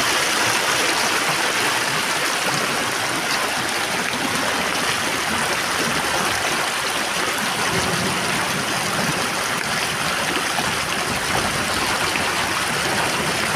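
Heavy rain falling steadily: a loud, even hiss of countless drops with no let-up.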